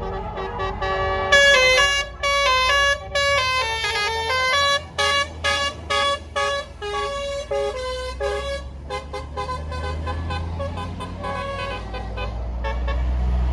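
A bus's musical 'basuri' telolet air horn playing a tune of stepped notes, held at first, then short and rapid. Underneath, the bus engine runs, growing louder near the end.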